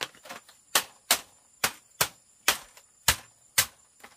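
Repeated sharp chopping strikes on bamboo, about two a second at an uneven pace.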